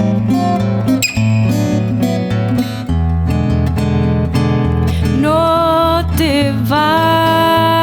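Acoustic guitar playing an instrumental passage of a Chilean tonada, picked notes over a moving bass line. About five seconds in, a voice comes in singing long held notes over the guitar.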